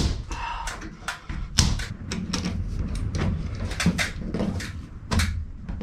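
Irregular knocks and clicks of plastic 22mm air pipe being handled and pressed into its wall clips and push fittings, about one or two sharp knocks a second.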